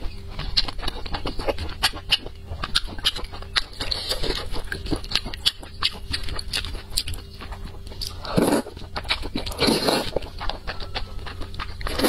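Close-miked eating sounds: moist chewing with many small wet mouth clicks, and two longer slurps of soft, saucy food, one about two-thirds of the way in and another soon after.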